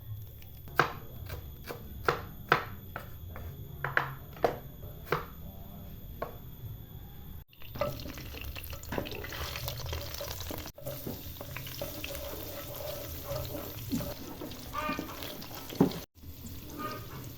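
Kitchen cooking sounds: about a dozen sharp knocks over the first few seconds, then a steady run of water and stirring noise.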